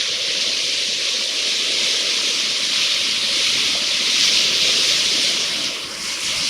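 Rushing whitewater of river rapids, a steady hiss with a short dip near the end.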